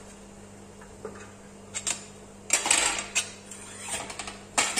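Wooden spoon stirring in a metal pot on the stove, scraping and knocking against the pot in irregular clicks, busiest about halfway through and again near the end.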